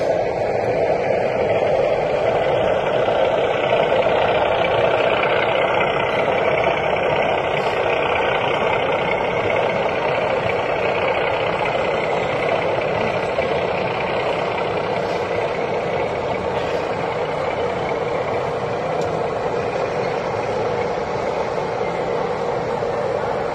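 Sound-fitted model diesel locomotive's engine sound, a steady diesel rumble played through the model's small speaker, easing off slightly over the stretch.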